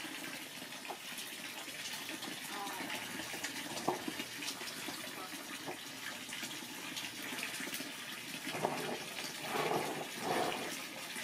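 Water running steadily into a plastic tub, with a few brief louder sounds near the end.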